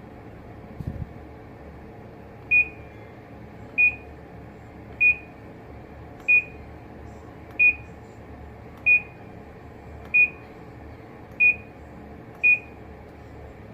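Panasonic NA-F70S7 washing machine's control-panel beeper sounding nine short, evenly spaced high beeps, about one every second and a quarter. A brief low knock comes about a second in, and a steady low hum runs underneath.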